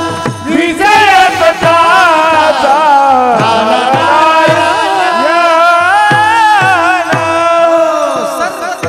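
Male voices singing a Warkari bhajan in chorus, with taal hand cymbals and the regular beat of a mridang drum under them. The music fades near the end.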